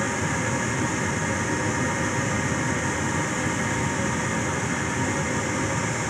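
Draft inducer fan motor of a 1992 Rheem Criterion gas furnace running steadily, its motor freshly oiled, during the pre-purge before the hot surface igniter comes on.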